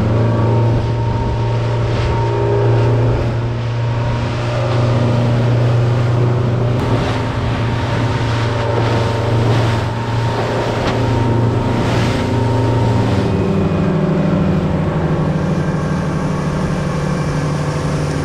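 Motorboat running at speed: a steady engine drone over rushing water and spray from the hull cutting through choppy sea, with a few splashes as it meets the waves. About two-thirds of the way through, the engine note steps up in pitch.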